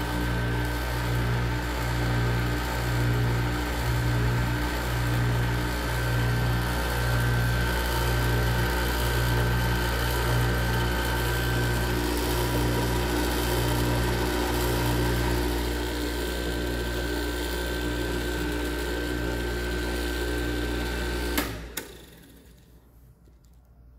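Electric motor of a peanut-paste grinding machine (colloid-mill emulsifier) running steadily, with a fixed hum and a slow, regular pulsing. It stops abruptly with a click near the end.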